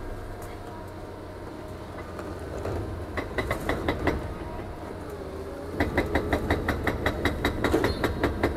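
An excavator-mounted hydraulic breaker hammering reinforced concrete, several blows a second, over the excavator's low engine hum. A short run of blows comes about three seconds in, then a pause, then steady continuous hammering from about six seconds in.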